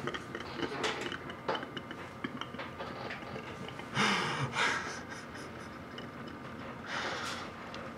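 A man laughing quietly under his breath in breathy exhaled bursts, the strongest about four seconds in and another near seven seconds.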